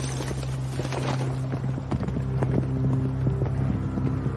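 Horses' hooves clopping irregularly on the ground as the riders move off, over a low, steady held drone of film score.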